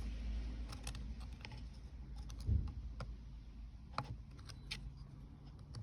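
Scattered small clicks and taps of hands prying at retaining clips and handling parts on a DSG gearbox's mechatronic unit, with a soft low thump about two and a half seconds in.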